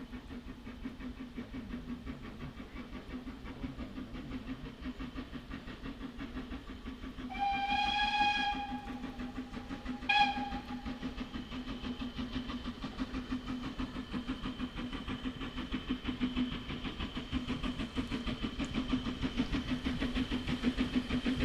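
Steam locomotive approaching, its running sound growing steadily louder. Its steam whistle is blown for about a second a third of the way in, then given one brief toot shortly after.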